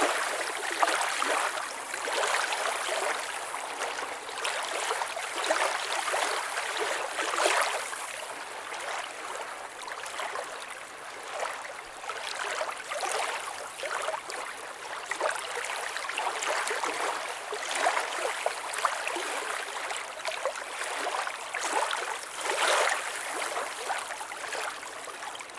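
Water splashing and gurgling in a continuous rush that swells and ebbs unevenly every second or two.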